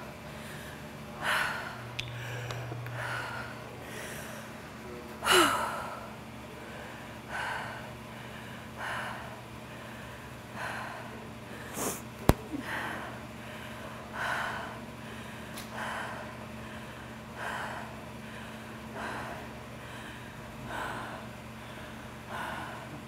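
A woman breathing hard, about one breath every one and a half seconds, catching her breath in a rest between exercise rounds. A single sharp click about twelve seconds in is the loudest sound, over a steady low hum.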